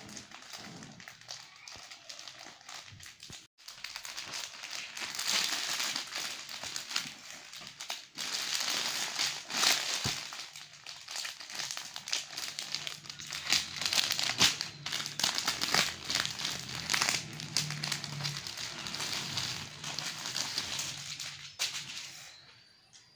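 Plastic packaging crinkling and rustling as it is handled: a plastic courier mailer and a clear plastic garment wrapper being opened. It is fairly quiet at first, louder from about four seconds in, and dies away near the end.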